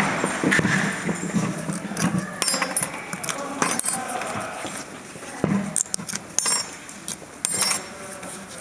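Thin metal brake-pad anti-squeal clips being worked out of a caliper mount, with irregular metallic clicks, clinks and scrapes.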